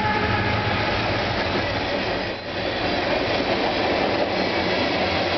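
Freight train cars, covered hoppers and tank cars, rolling past at close range: a steady rumble and rattle of steel wheels on the rails, dipping briefly about halfway through.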